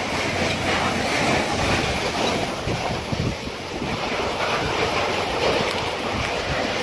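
Strong hurricane wind blowing across the microphone: a steady rushing noise with irregular low buffeting thumps.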